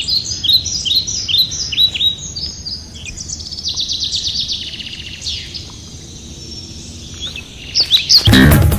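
Birds chirping: a series of short, high chirps sliding downward, about two a second, then a quick trill, then quieter calls. Near the end loud music cuts in.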